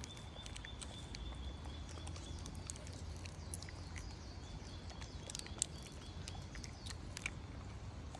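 A macaque handling and eating from a plastic jelly cup: scattered small clicks and crinkles of the plastic, with two sharper clicks in the second half, over a thin steady high tone and a low background rumble.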